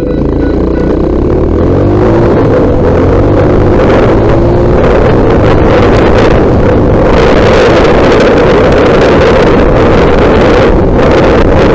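Trail motorcycle engine running while riding, mixed with heavy wind rumble on the camera microphone. It grows louder over the first two seconds, then holds steady.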